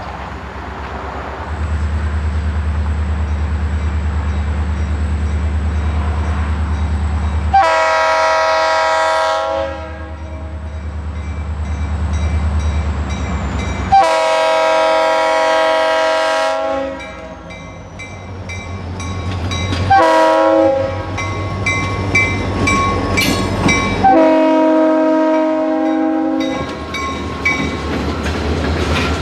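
EMD SD40 diesel locomotive approaching under a steady low engine rumble, sounding its multi-chime air horn, believed to be a Prime PM920 (a Leslie RS3L sound-alike), in the long-long-short-long grade-crossing pattern.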